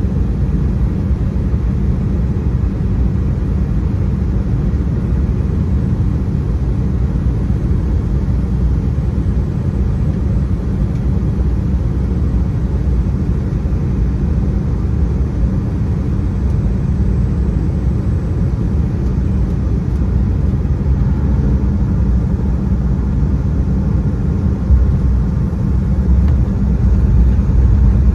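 Airliner cabin noise during the landing: a steady, loud low rumble of the engines and airflow. A single thump about 25 seconds in, as the wheels touch down, is followed by a louder rumble as the plane rolls down the runway.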